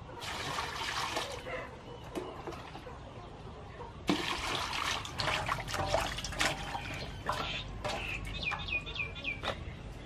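Water splashing and trickling as a table is washed down, with light knocks from the washing. It gets louder about four seconds in.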